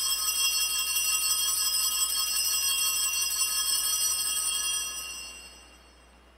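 Altar bells (Sanctus bells) shaken in a continuous bright jingle, fading away about five seconds in: the bells rung at the elevation of the consecrated host during Mass.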